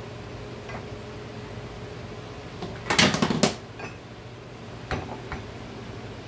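A quick run of clinks and knocks of a metal plastisol injector against a glass measuring cup about three seconds in, then two lighter knocks near the end as it is set into a metal injector rig, over a steady low hum.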